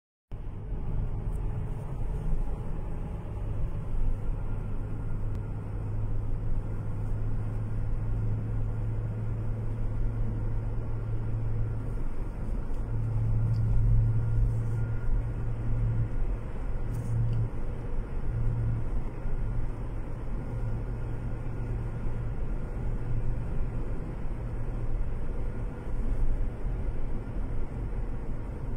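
Car driving at a steady cruise, heard from inside the cabin: engine and tyre noise as a low, steady drone.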